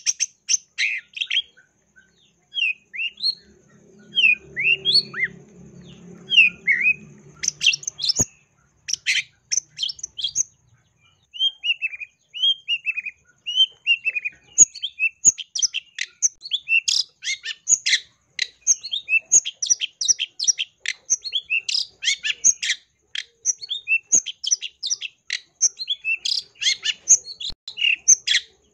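Long-tailed shrike (cendet) singing a fast, varied song packed with mimicked phrases of other birds. It opens with downward-sliding whistles, then a run of falling slurred notes, and breaks into rapid dense chatter.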